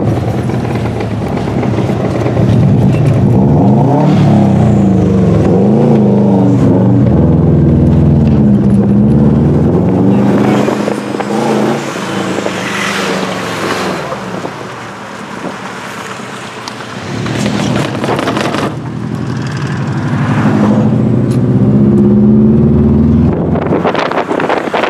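Rally car engine heard from inside the cabin, revving up and down through the gears as the car accelerates; it eases off a little past halfway, then pulls hard again and drops back near the end.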